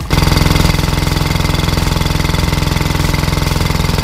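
Farymann marine diesel engine running on a test stand, a loud, steady, rapid clatter of firing strokes that comes in suddenly at the start, with cooling water spraying out of its wet exhaust. The engine is running well on its first test runs.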